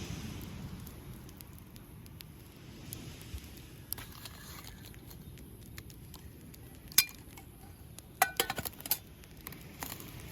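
Camp cookware clinking: a few sharp metallic clinks with brief ringing, the loudest about seven seconds in, then a quick cluster of clinks near the end, over a steady wash of waves on the shore.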